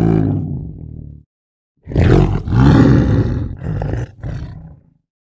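Tiger roaring twice: the first roar dies away about a second in, and a second, longer roar starts about two seconds in and trails off before the end.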